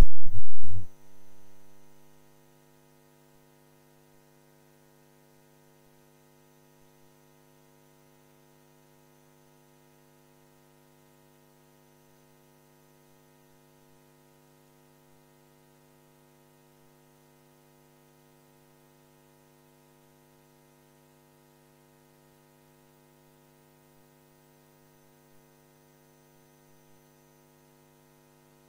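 Steady electrical mains hum, a faint buzz of many evenly spaced tones. A loud, brief bump in the first second dies away, leaving only the hum.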